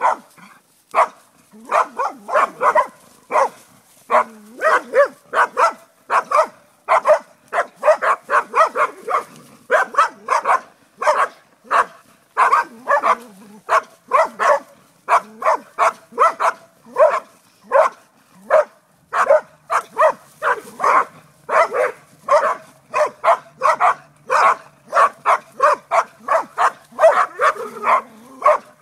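Dog barking at a snake in the grass: a rapid, unbroken string of sharp barks, about two to three a second, with only brief pauses.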